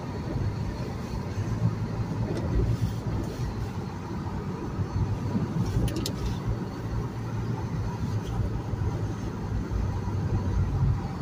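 Honda CR-Z driving slowly on a snow-covered road, heard from inside the cabin: a steady low rumble of engine and tyres in the snow.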